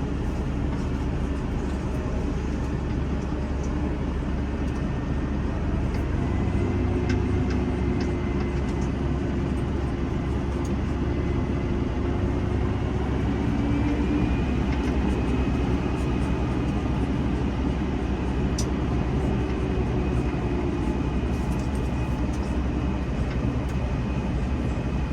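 Massey Ferguson 5S.145 tractor engine running steadily under way, heard from inside the cab as a constant low drone with a faint whine that rises a little about halfway through.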